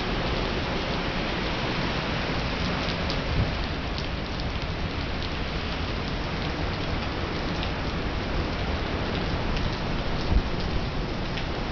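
Heavy rain pouring onto a wet street and pavement: a steady, dense hiss with scattered drop taps, and a brief louder tap about three seconds in and again near the end.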